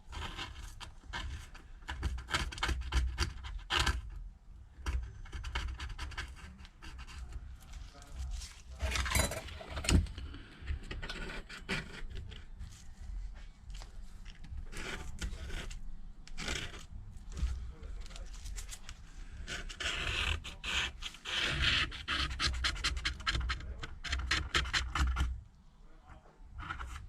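Irregular scraping and rubbing strokes of a hand tool cleaning leftover old adhesive off the rim of an iPad mini 2's aluminium housing, prepping it to take a new screen.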